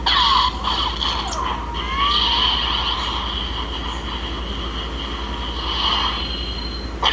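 Toy Darksaber lightsaber's electronic sound effects through its small speaker: a steady hum with swinging pitch sweeps in the first two seconds, then a long, steady high buzz until near the end.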